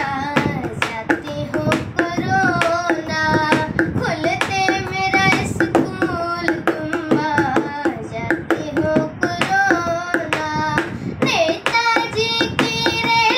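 A boy singing a Hindi song solo in held, melodic notes, with a steady tapping beat underneath.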